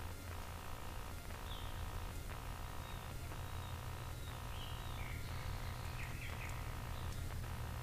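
Steady low hum and hiss of a trail camera's own recording noise. A few faint, short, high chirps come through it, near the second second and twice around the fifth and sixth.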